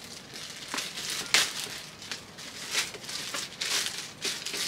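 Clear plastic wrapping crinkling as a boxed figure is handled and pulled from its bag: a series of short rustles, the loudest just over a second in.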